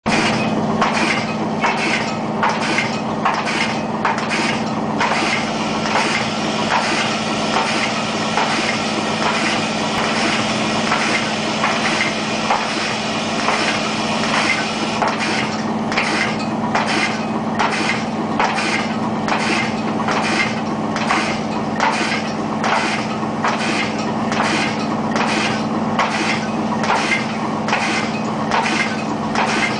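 Automatic zipper-slider assembly machine running: a steady hum from its vibratory bowl feeders with small metal parts rattling, under a rhythmic clacking of the index table and punch strokes at about two a second. The clacking is fainter from about five seconds in and comes back strongly about halfway through.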